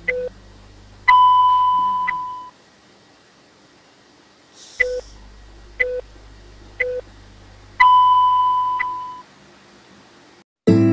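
Electronic countdown beeps: short low beeps about a second apart, each run ending in a longer, higher beep about a second long. The pattern is heard twice.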